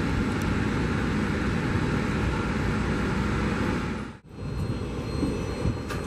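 Helicopter engine and rotor running steadily as it taxis. About four seconds in the sound cuts off sharply and switches to the engine noise of a jet airliner rolling out after landing on a wet runway.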